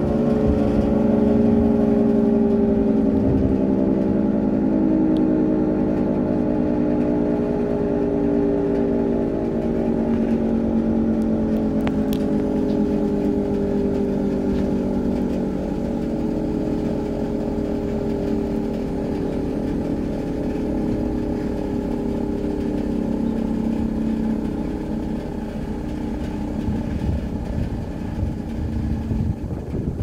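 Federal Signal 2T22 dual-tone siren winding down slowly, its chord of several tones gliding gradually lower and growing fainter.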